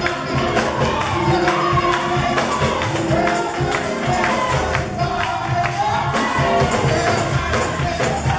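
Gospel music: voices singing over a tambourine shaking a steady beat, with a pulsing low bass.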